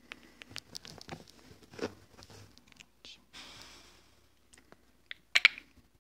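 Handling noise from a phone held close: scattered light clicks and rustles, a soft brief hiss about three and a half seconds in, and a sharp cluster of clicks near the end.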